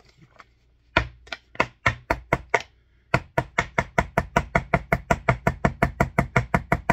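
Screwdriver tip jabbed again and again against a plastic water-bottle cap to punch a hole in it: sharp knocks, a few spaced taps at first, then a fast even run of about five a second.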